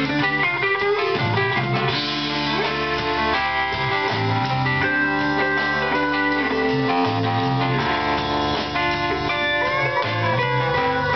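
Live rock band playing, electric guitar lines with some sliding notes over bass guitar.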